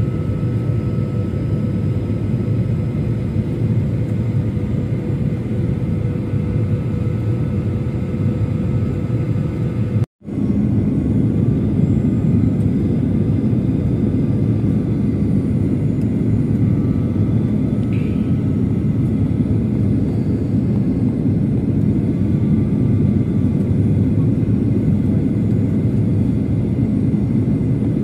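Steady airliner cabin rumble from the engines and air, heard at a window seat. It cuts out sharply for a moment about ten seconds in, then continues slightly louder.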